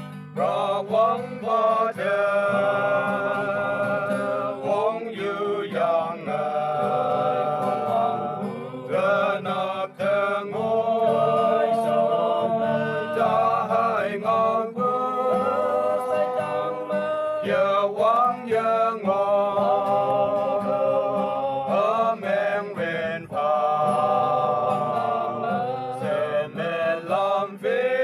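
A group of men singing a hymn together in long held notes, phrase after phrase, with an acoustic guitar accompanying them.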